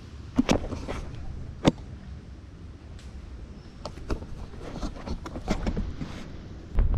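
Scattered sharp cracks and knocks of dry mangrove roots and branches under hands and bare feet as someone climbs through them, over a low rumble of handling noise, with a heavy bump near the end.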